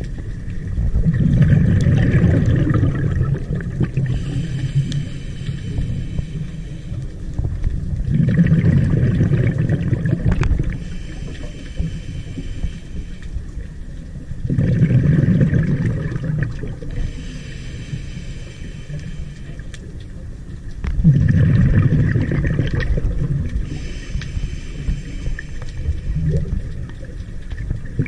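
Scuba diver breathing through a regulator underwater: a rumbling, gurgling rush of exhaled bubbles about every six to seven seconds, with a quieter hiss of inhalation between them.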